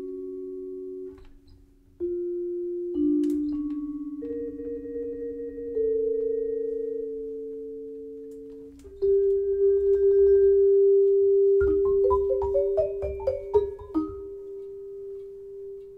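Vibraphone played with soft yarn mallets: held two-note chords ring and change every second or two, then about three-quarters of the way through a quick rising run of short struck notes plays over a sustained low note, which is left ringing and fading near the end.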